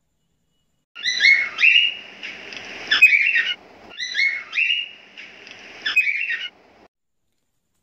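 Chirpy, whistle-like sound effect of a subscribe-and-like bumper, played twice in the same way, each run about two and a half seconds long.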